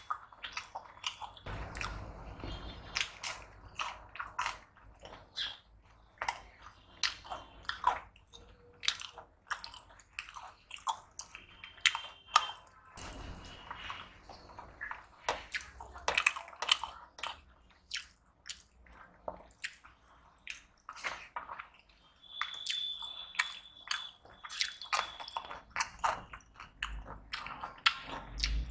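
Close-up chewing and lip-smacking of a person eating rice and curry, an irregular run of short wet mouth clicks.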